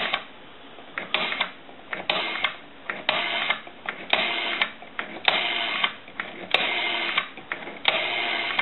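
Rotary dial of a Northern Electric Galion telephone, wound and let go digit after digit: each return is a short run of dense clicking, about seven of them a second apart. The dial has just been cleaned, oiled and adjusted and is returning properly, pulsing each digit out correctly.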